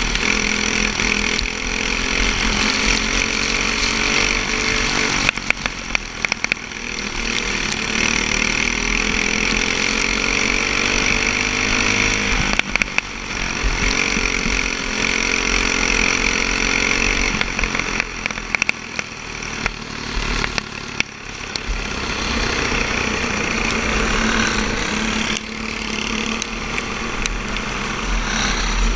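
Racing go-kart engine at full throttle, heard on board. Its pitch climbs down each straight and drops off with brief clicks and crackles as the driver lifts for the turns, roughly every six to seven seconds.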